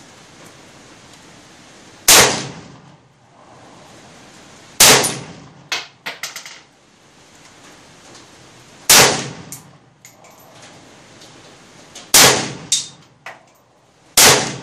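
1953 Tula SKS semi-automatic rifle firing 7.62×39mm rounds: five single shots a few seconds apart, each a sharp crack with a brief echoing tail. A few smaller sharp clicks and clacks come between the shots.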